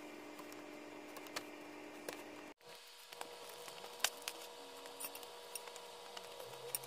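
Diagonal cutters snipping plastic parts off a robot kit's sprue: a few scattered sharp clicks, the loudest about four seconds in, over a faint steady hum.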